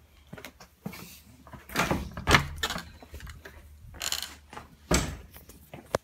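A door being opened and shut, with several knocks and thumps and handling noise, the loudest about two seconds in and again near five seconds.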